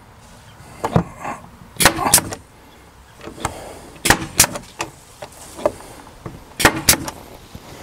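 Craftsman CMPBN18SB 18-gauge pneumatic brad nailer firing brads into a wooden door board: a series of sharp shots, mostly in quick pairs, with the pairs a couple of seconds apart.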